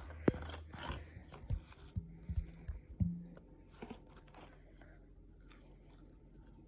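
A person biting and chewing food, with a few short crunches and clicks over the first few seconds before it goes faint.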